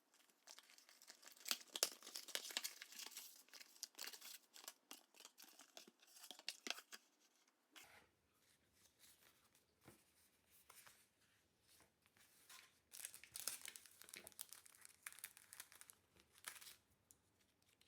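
Packaging of a craft kit being torn open and crinkled by hand, in two spells of dense crackling with quieter rustling between.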